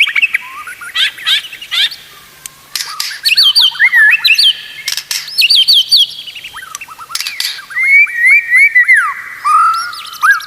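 White-rumped shama (murai batu) singing loudly: quick series of clear whistled notes that slide up and down, repeated phrase after phrase with short pauses between.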